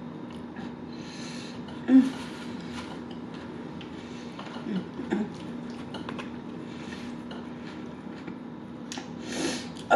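Close-up eating sounds: a fork scraping and clicking in a takeout burrito bowl, with chewing and lip smacks. The sharpest smack comes about two seconds in, with a few more near the middle and end. A steady low hum runs underneath.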